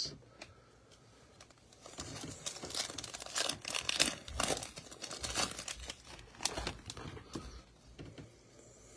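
A Panini Prizm basketball card pack wrapper being torn open and crinkled by hands in thin plastic gloves: irregular crackling and tearing that starts about two seconds in and goes on until near the end.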